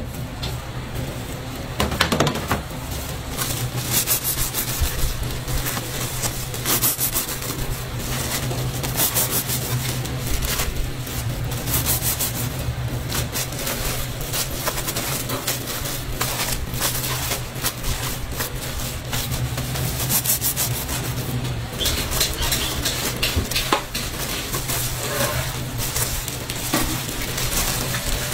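Kitchen handling sounds: scattered clicks, taps and scrapes of gloved hands moving breaded fried buns on metal trays, over a steady low hum.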